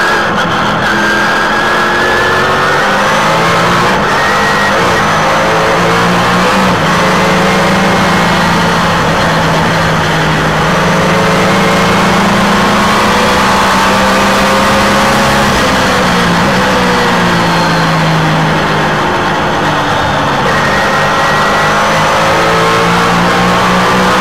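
Onboard sound of a Trans Am race car's engine at racing speed, running at high revs and climbing in pitch as it accelerates out of a corner. Its pitch eases down for a few seconds in the middle, then climbs again near the end.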